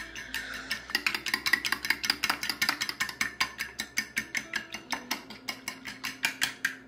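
Metal fork whisking eggs and milk in a glass baking dish, the tines clicking against the glass about seven times a second.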